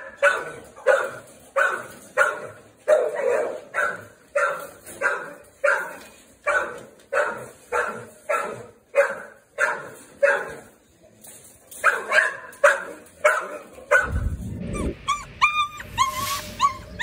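A dog barking repeatedly in a steady rhythm, about two barks a second, with a short pause partway through. Near the end come higher-pitched whines and yelps.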